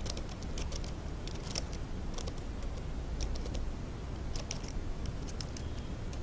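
Typing on a computer keyboard: short runs of light key clicks every second or so, over a steady low hum.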